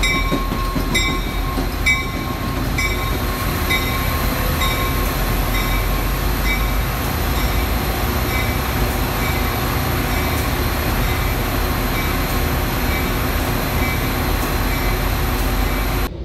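Metra diesel commuter locomotive rumbling steadily as it moves through the station, its bell ringing about twice a second at first, the strokes slowing and fading away over the following seconds.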